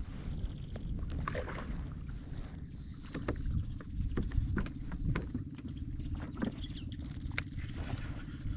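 Sounds on a small fishing boat on the water: a steady low rumble with many short clicks and knocks scattered through it.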